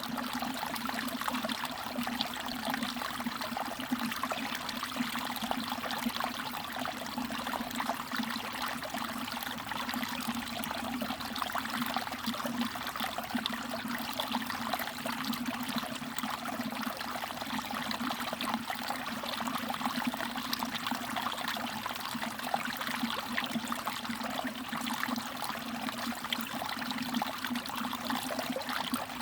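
Mountain valley stream trickling steadily over rocks, with small splashes and drips.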